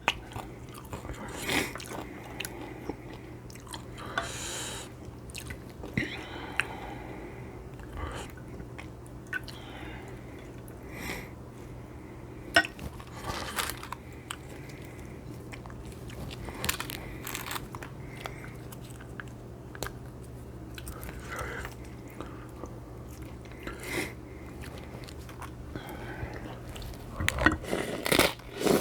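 Close-miked mouth sounds of someone eating Mexican shrimp cocktail: wet chewing and smacking with crunchy bites, coming in irregular clusters. A steady low hum runs underneath.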